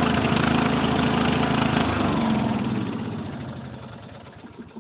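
Riding lawn mower's 14.5-horsepower engine running loud through its stock exhaust, then about two seconds in it shuts off and winds down, fading away by the end.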